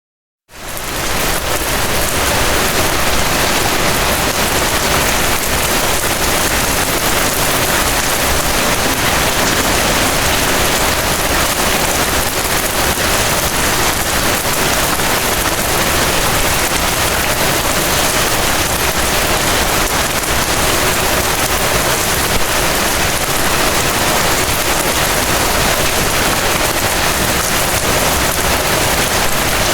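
Steady rain falling, an even hiss with no let-up, fading in over the first second.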